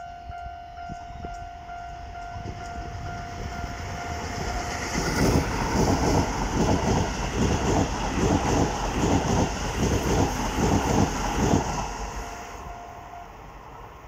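A level-crossing warning bell rings steadily and repeatedly as a Hokuso Railway 7500-series electric commuter train approaches. From about five seconds in to about twelve, the train passes close by, its wheels clattering rhythmically over the rail joints and drowning out the bell. The bell is heard again briefly near the end.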